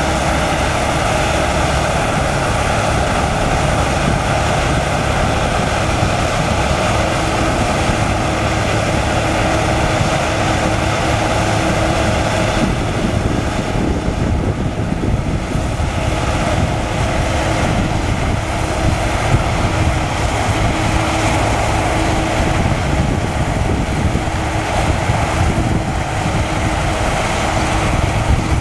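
Claas Lexion 450 combine harvester working through standing wheat: a steady drone of its diesel engine and threshing machinery running under load, with a constant hum.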